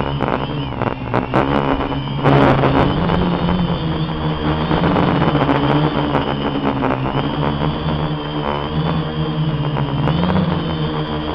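Quadcopter electric motors and propellers running close to the onboard camera's microphone, several tones sliding up and down in pitch as the throttle changes. A rush of wind buffets the microphone about two seconds in.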